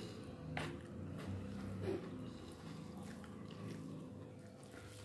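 Faint chewing of a mouthful of rice and curry, with a couple of sharp clicks, the louder one about two seconds in.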